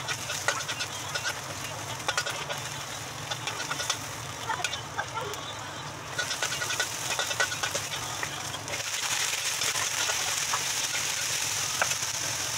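Stir-frying in a wok: chopped garlic, onion and ginger sizzling in hot oil, with a metal spatula scraping and clicking against the pan. From about nine seconds in, with string beans in the wok, the sizzle turns louder and more even, over a steady low hum.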